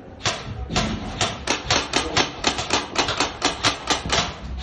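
Airsoft guns firing in quick, uneven sharp shots, about six a second.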